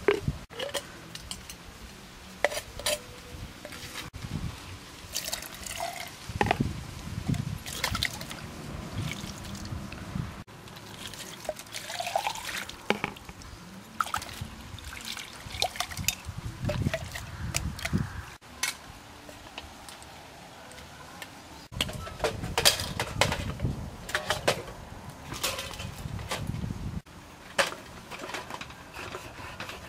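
Liquid pouring, splashing and dribbling out of opened aluminium drink cans, between sharp clicks and scrapes of a knife blade cutting into the can tops.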